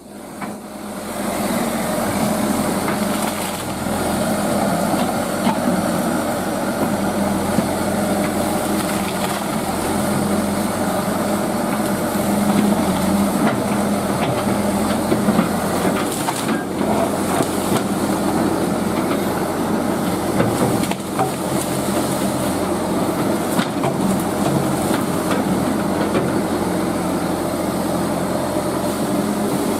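Excavator's diesel engine running steadily under load, building up over the first two seconds.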